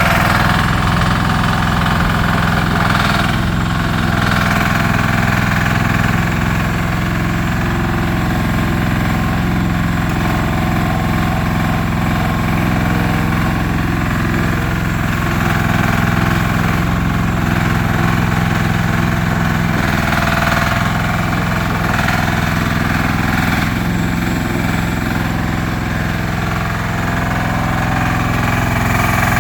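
JCB excavator's diesel engine running steadily at an even speed.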